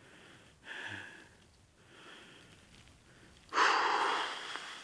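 A man breathing hard, with a short breath about a second in and a loud, long exhale through pursed lips near the end.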